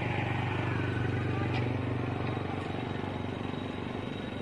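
A steady low engine hum over a background haze, easing off a little after about two and a half seconds.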